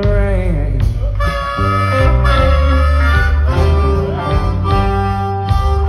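Blues harmonica played into a cupped microphone, bending notes at first and then holding long notes, over electric guitar, bass and drums of a live band.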